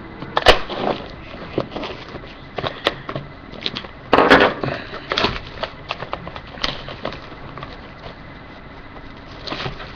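Packaging of a sealed trading card box being handled and opened: crackling wrapper and cardboard, with scattered sharp clicks and a louder rustle about four seconds in.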